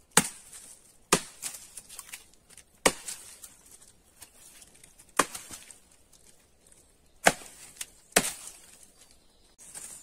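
Wood being chopped with a hand axe or hatchet: six sharp chops at an uneven pace, with fainter knocks and crackles between them.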